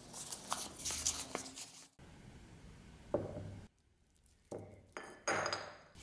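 A paper towel rubs and scrapes along a steel knife blade, then after a cut come a few sharp clinks and a brief ring of metal against an enamel plate.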